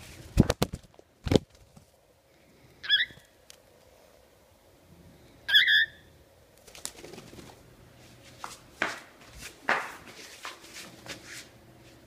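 A cockatiel giving two short chirps, a couple of seconds apart, among sharp thumps near the start and softer knocks and rustles later on.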